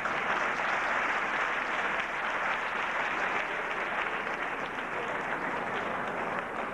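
Audience applauding, breaking out at once and easing off near the end.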